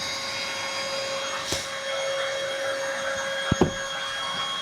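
Small electric blower-type motor running steadily: an even hiss with a constant whine, plus a couple of light knocks near the end.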